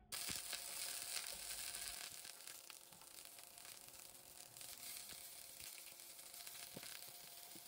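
Tenderstem broccoli, then a slice of egg-battered Spam, sizzling in oil in a nonstick frying pan. The sizzle starts abruptly, is loudest for about the first two seconds, then settles a little lower, with a few light clicks.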